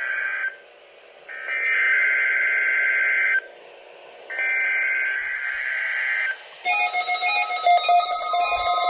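Emergency Alert System SAME header data sent over NOAA Weather Radio: a harsh, buzzing two-tone digital warble in bursts about two seconds long with a second of radio hiss between them, the three repeats of the header that open a Required Weekly Test. About two-thirds of the way in, electronic music with a stepping synthesizer melody begins.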